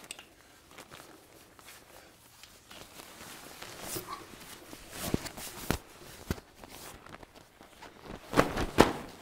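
Camo fabric FUNHORUN pop-up ground hunting blind being handled and pulled open by hand: rustling fabric with scattered knocks and clacks from its frame, busiest and loudest in a cluster near the end.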